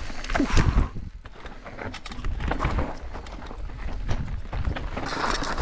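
Full-suspension mountain bike descending a rough rocky trail: tyres crunching over dirt and rock with knocks and rattles from the bike, a few loud knocks in the first second, then quieter rolling and clattering.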